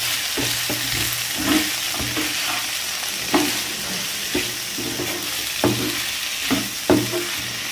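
Spatula stirring edible orchid flower buds (nakima) and spices in a hot frying pan: a steady sizzle of oil with irregular scrapes and taps of the spatula against the pan.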